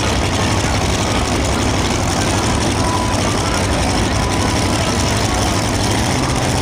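The supercharged engine of a light modified pulling tractor idling steadily and loudly with a low, even rumble.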